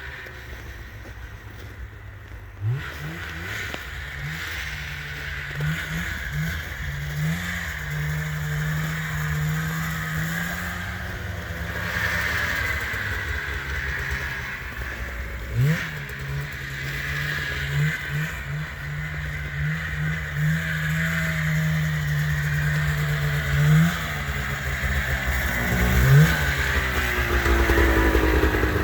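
Freshly rebuilt 1989 Yamaha Exciter 570 snowmobile's two-stroke engine running, with the throttle blipped in short revs every few seconds.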